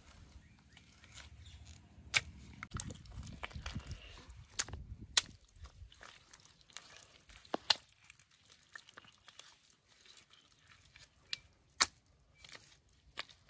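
Hands digging and scooping through wet clay mud, with soft scraping and squelching and half a dozen sharp clicks scattered through it.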